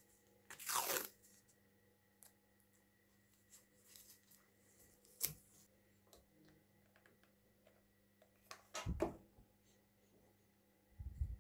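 Masking tape pulled off the roll and torn by hand, a loud tearing rustle about a second in, then scattered small clicks and a sharp click midway, and another loud rustle of tape handling near the end.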